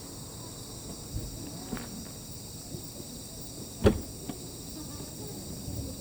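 Crickets trilling steadily in a night-time insect chorus, with a few soft clicks and one sharper knock about two-thirds of the way through.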